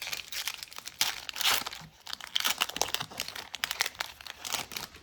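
Foil Pokémon booster pack wrapper crinkling and tearing as it is handled and opened, a dense run of crackles and small clicks.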